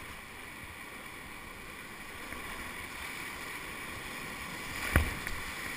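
Whitewater rapids rushing steadily around a kayak in the current, with one sharp thump about five seconds in.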